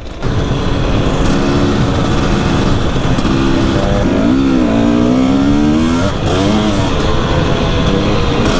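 Two-stroke enduro motorcycle engine running hard under load, its revs dropping and climbing again several times through the middle of the stretch.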